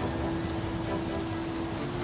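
Steady background hiss with a thin high whine and a faint steady low hum, no distinct events.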